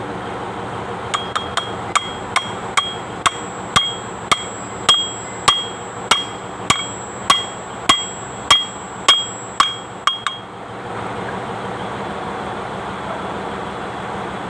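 Hammer driving a ball bearing onto the hub of a Kubota Bultra B16 front-axle bevel ring gear: about twenty sharp, ringing metal-on-metal strikes, roughly two a second, stopping about two-thirds of the way through.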